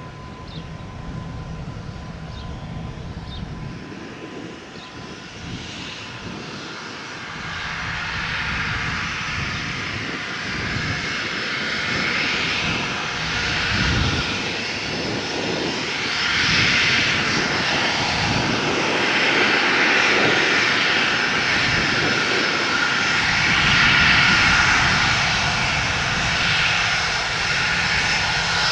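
The twin Rolls-Royce BR725 turbofan engines of a Gulfstream G650 business jet running with a steady rushing jet noise that grows louder through the stretch, with a faint high whine above it.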